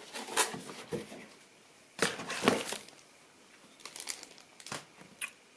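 Plastic packaging crinkling and rustling in several short bursts, the loudest about two seconds in, as the toy's clear blister tray and cardboard box are handled.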